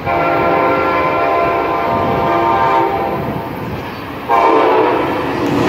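Approaching passenger train's multi-note air horn: one long blast, a short break about four seconds in, then a second blast, over the low rumble of the train.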